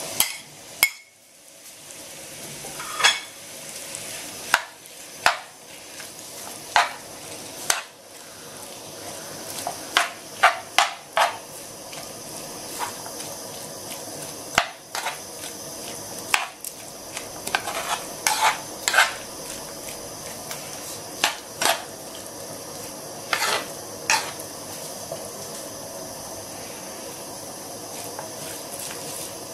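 Diced raw chicken breast tipped into a pan of sliced onions and stirred in. The pan's steady sizzle drops away about a second in as the chicken goes in, then builds back. Irregular sharp scrapes and knocks of the stirring utensil against the pan sound over the sizzle.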